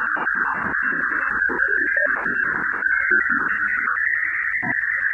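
Audio rendering of radio emissions recorded by the Waves instrument on NASA's Juno spacecraft during its Ganymede flyby, shifted into the audible range. It is a wavering high tone that rises slightly in pitch toward the end, over irregular low fluttering noise.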